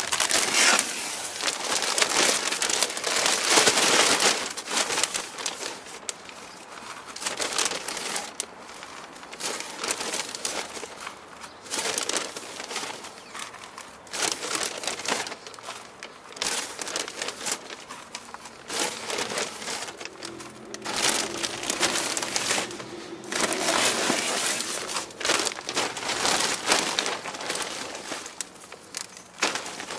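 Potting soil being scooped by hand from a bag and tipped into a large plastic pot around a young avocado's roots: the bag crinkles and the soil rustles in repeated scoops, the heaviest in the first few seconds.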